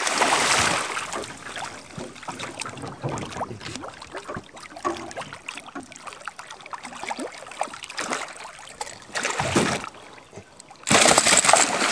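Hooked peacock bass thrashing and splashing at the water's surface beside a boat. There is a loud splash at the start, small splashes between, a short splash just after nine seconds, and heavy splashing again near the end.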